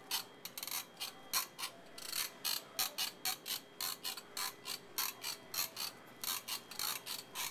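Quick ratchet-like mechanical clicking, several clicks a second and unevenly spaced, that goes with a living-statue performer's robotic 'mechanical movement' routine.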